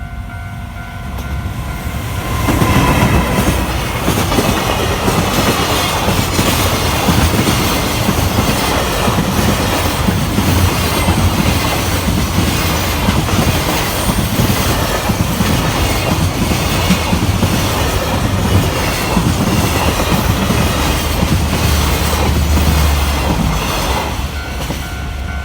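EF210 electric locomotive and its freight wagons passing over a level crossing: a loud, steady rumble of wheels on rail with a rhythmic clickety-clack, rising about two seconds in and easing off near the end. The crossing's warning bell is heard as a steady ringing tone at the start, then again as the train clears near the end.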